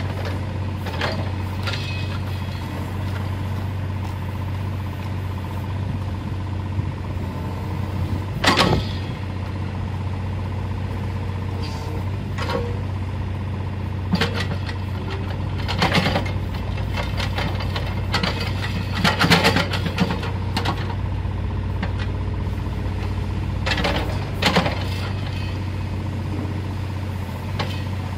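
Hitachi ZX30U-5A mini excavator's diesel engine running steadily while the boom, arm and bucket are worked, with a few sharp knocks from the front linkage. The loudest knocks come about eight and a half seconds in and again around nineteen to twenty seconds.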